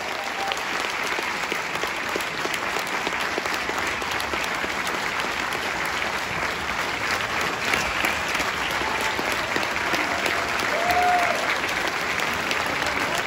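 Auditorium audience applauding steadily at the end of a school band's performance, with a short pitched call from the crowd about eleven seconds in.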